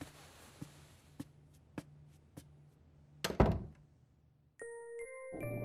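A door shutting with a single loud thunk, after a run of light, evenly spaced taps less than two a second. Soft chiming music begins near the end.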